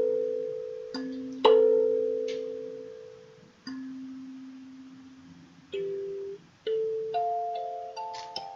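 Kalimba playing slowly: single plucked notes ring out and die away a second or two apart, then a quicker run of notes comes near the end.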